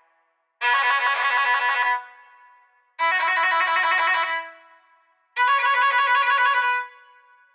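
HTC Rhyme ringtone playing through the phone's small loudspeaker: a short melodic phrase that repeats three times, about every two and a half seconds, with no bass.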